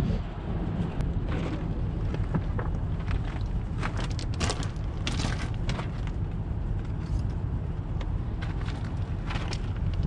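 A steady low rumble, with scattered rustles and short clicks from handling gear in a tool bag and footsteps on loose roof gravel.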